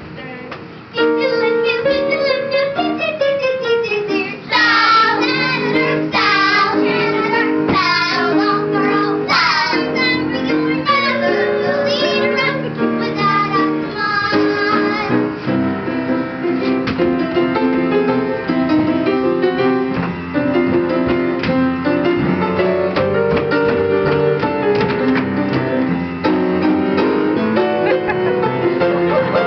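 Children singing a song with piano accompaniment.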